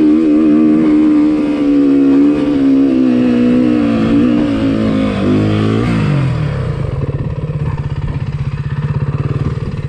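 Dirt bike engine revving hard as it rides up a soft sand slope, then the revs fall away about six seconds in and it settles into a steady, lower idle.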